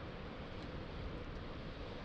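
Steady outdoor rushing noise of coastal wind and surf, strongest in the low rumble and without any distinct events.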